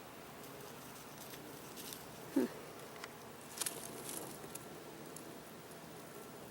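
Faint outdoor ambience with insect sounds: a short low buzz about two and a half seconds in, then a few faint ticks.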